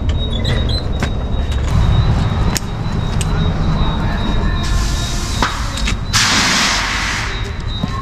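Shop air hose hissing for about two seconds a little past the middle, over a low rumble and scattered metallic clicks and knocks as a large floor jack is worked under a travel trailer.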